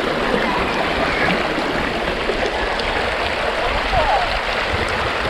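Shallow headwaters of the Mississippi River running steadily over rocks where it overflows out of Lake Itasca.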